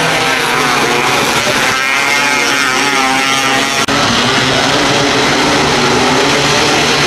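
Several 270 micro sprint cars' engines racing at high revs together. Engine notes rise and fall as cars pass between about two and three and a half seconds in. There is a brief dropout just before four seconds in, after which the engines carry on.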